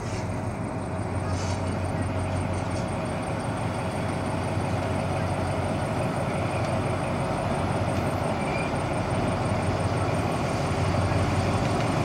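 Alsthom diesel-electric locomotive hauling a passenger train slowly over a wooden trestle viaduct: a steady engine hum with the rumble of the train, growing gradually louder as it approaches.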